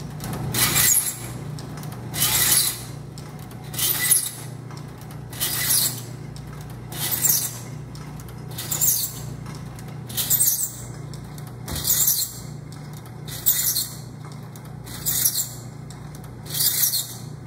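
Belsaw saw-filing machine running on its own, its file rasping across a hand saw's teeth one tooth at a time: a rasping stroke about every second and a half over the steady hum of its electric motor.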